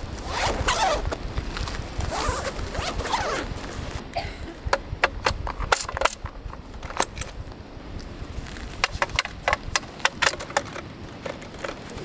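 A zipper drawn open around a fabric carry case in two long rasps over the first few seconds, then a run of sharp metallic clicks and taps as metal legs are fitted into the frame of a Snow Peak IGT camp table.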